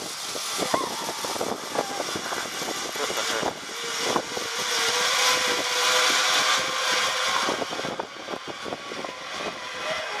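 Zip wire trolley running down the steel cable: a whirring hiss with a steady hum beneath it. It builds a few seconds in, is loudest in the middle of the run and drops away near the end.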